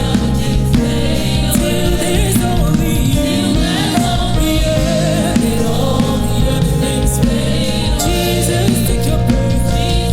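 Gospel song: singing voices over instrumental accompaniment, at a steady, loud level.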